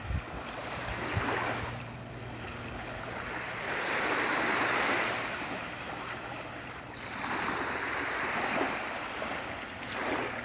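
Small waves lapping onto a sandy beach. Each wash swells and falls back every few seconds, the loudest about four to five seconds in. A faint steady low hum runs underneath.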